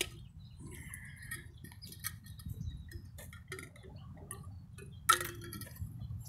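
Handling noise from a camera being moved about while a man drinks from a metal water bottle: scattered small clicks and taps over a low rumble, with a sharper knock about five seconds in.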